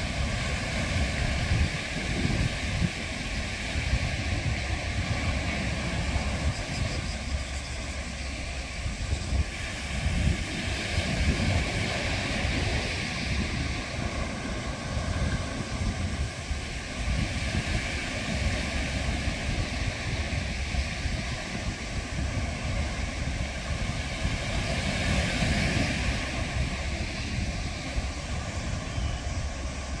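Sea waves surging against and washing around offshore rocks: a continuous surf rush that swells and eases as the waves break. Wind buffets the microphone, adding a low, uneven rumble underneath.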